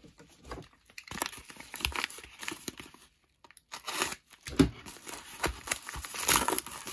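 Paper bubble mailer being handled and torn open, with irregular crinkling and tearing. A sharp knock about two thirds of the way through.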